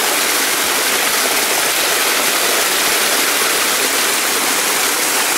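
A waterfall's rushing water, a steady, even hiss of falling and flowing water.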